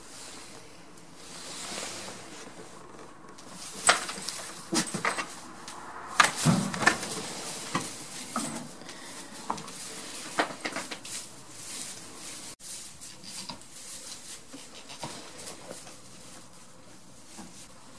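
Irregular sharp knocks and bumps on the wooden boards of a goat pen, bunched between about four and eleven seconds in and thinning out after, over a soft rustle of straw.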